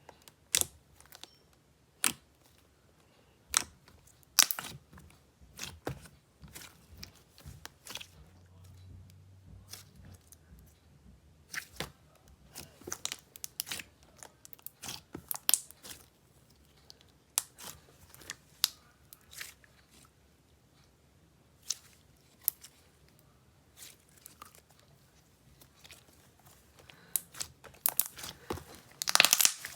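Thick, glossy slime being poked and squished by hand, giving irregular sharp pops and clicks, with a louder burst of pops near the end.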